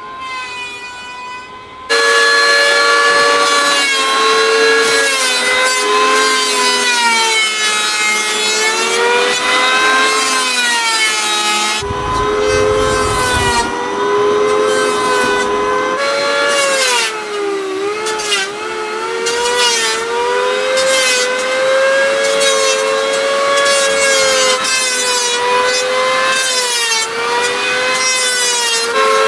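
Electric hand planer running and shaving a wooden plank, its motor whine getting loud about two seconds in and then dipping and rising in pitch as the blade takes the wood.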